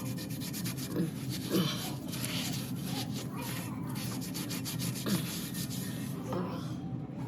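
Rubbing and scraping handling noises with a few short squeaks, over a steady low hum.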